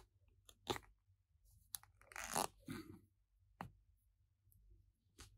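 Small plastic action-figure parts handled between the fingers: a few faint, sharp clicks and a short scraping, crunchy rustle about two seconds in as the soft plastic hood is worked loose from the skeleton head.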